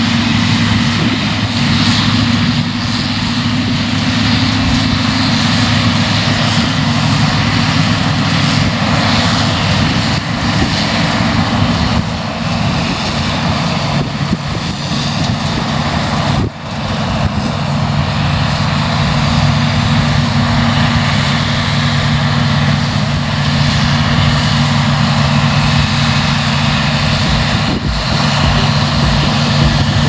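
New Holland CX8040 combine harvester cutting wheat, its engine and threshing machinery running as a loud, steady drone, with a New Holland TM tractor running alongside. The sound dips briefly about halfway through.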